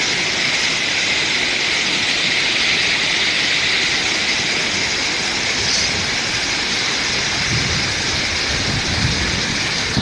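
Waterfall: a steady, loud rush of falling water, with some low rumbling bumps in the last few seconds.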